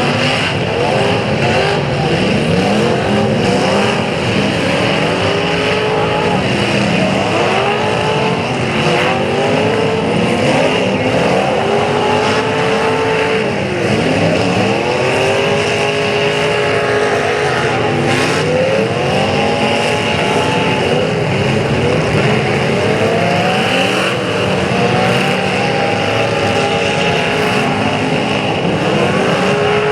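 Several demolition derby cars' engines revving hard and dropping back, over and over, their pitches rising and falling in overlapping arcs. A few short bangs stand out, once about a third of the way in and again past the middle.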